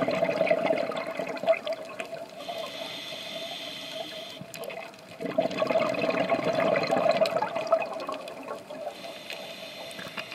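Scuba diver breathing through a regulator underwater. A bubbling, gurgling exhale runs for about the first two seconds and again from about five to eight seconds, with a quieter hissing inhale between them.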